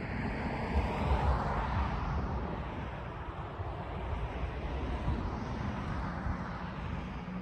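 Outdoor traffic noise with a low rumble: a vehicle swells past about a second in, and a second, gentler swell follows later.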